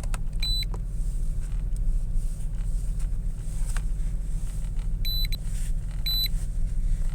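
Steady low hum of the Saturn Relay's engine idling, with short high-pitched electronic beeps: one about half a second in and two more, a second apart, near the end.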